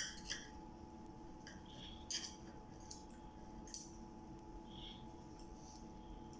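Knife and fork cutting through a rolled crepe on a ceramic plate, with a few faint clinks of metal on the plate scattered through, over a faint steady hum.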